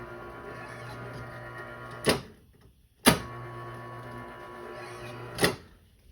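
Old garage door opener's electric motor running with a steady hum. It stops with a loud click about two seconds in, starts again with a click a second later, and stops with another click near the end. It runs rough even with a new start capacitor fitted: it doesn't sound happy.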